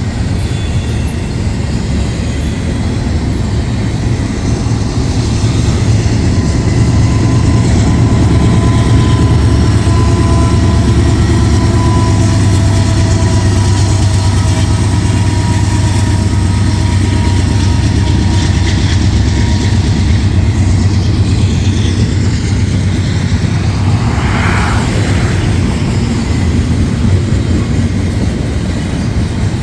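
Freight train rolling past: a steady heavy rumble of cars on the rails, with thin whining tones over it through the middle.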